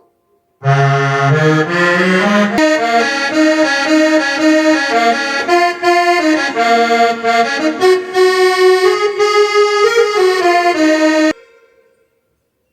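Korg Pa300 arranger keyboard playing a melody on one of its Indian tones, a sustained reed-like voice that opens with a rising run of notes and then moves through held notes. It stops suddenly near the end.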